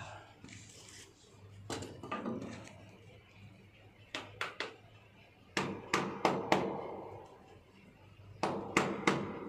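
Sharp knocks and taps from tool work on the wiring, in small groups: one early, three quick ones around the middle, four more a second later, and three near the end.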